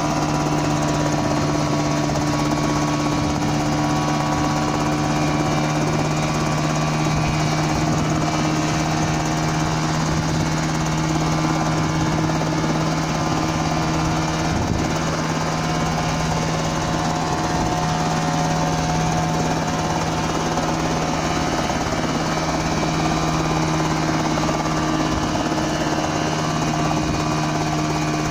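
Homemade single-seat coaxial helicopter running, its engine driving both spinning rotors. It makes a steady mechanical drone with a strong low hum that holds an even pitch and level throughout.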